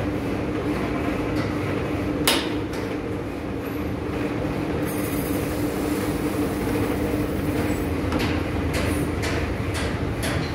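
Masking tape slicer running: its 1 hp single-phase motor spins the tape log in the lathe chuck with a steady hum. A single sharp click comes about two seconds in, and several more near the end.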